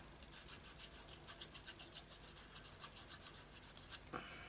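Paper being rubbed and pressed against a journal page by hand: a run of quick, faint scratchy strokes, several a second, that stop about four seconds in.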